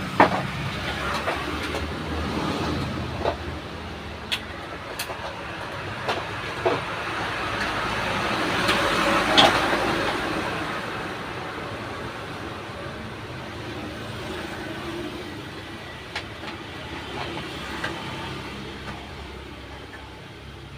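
Motor-vehicle traffic passing by: a rushing noise that swells to a peak about halfway through and then fades away, over a low hum. Scattered light clicks and knocks of hand work come through on top.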